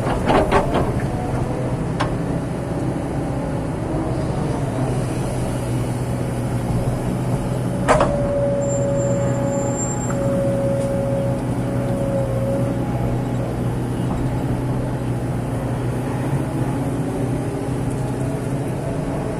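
Kobelco SK200-8 excavator's diesel engine and hydraulics running steadily under load while it digs and lifts sand, heard from inside the cab. A few sharp knocks come in the first second. One sharp knock about eight seconds in is followed by a steady whine of about five seconds.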